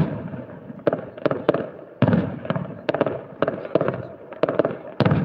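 Fireworks display: a string of sharp bangs from bursting aerial shells, about a dozen of them and sometimes two or three in quick succession, each trailing off in crackle and rumble.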